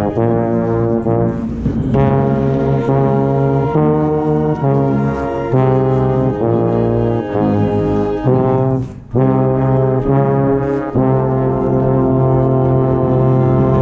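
Marching band brass playing loud sustained chords that change every second or two, cutting off briefly about nine seconds in before the next chord enters.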